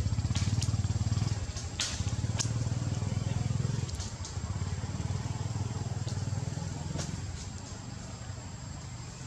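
A low engine rumble with a fast, even pulse, loudest over the first four seconds and then slowly fading, with a few sharp clicks over it.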